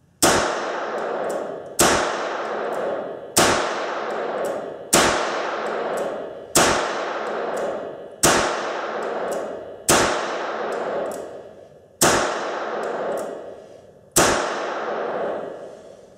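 H&R 949 .22 Long Rifle revolver fired nine times in double action, a shot every one and a half to two seconds, each with a long echo off the indoor range. Every round goes off: the replaced mainspring has cured the light-strike misfires.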